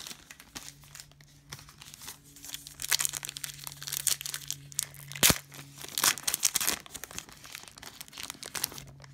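Trading-card pack wrappers being torn open and crinkled, in irregular rustling tears with a sharp snap about five seconds in.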